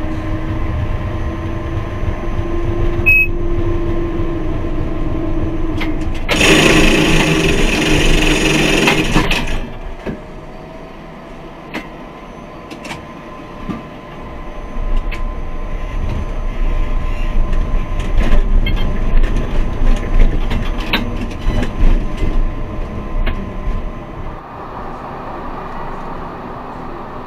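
A tram running on street track, heard from the driver's cab: a steady rumble with a faint slowly rising motor tone. About six seconds in, a loud sound lasts about three seconds. Later, scattered sharp clicks and knocks follow.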